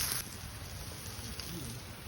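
Food sizzling on a hot griddle, cut off abruptly a moment in, leaving only faint low background rumble.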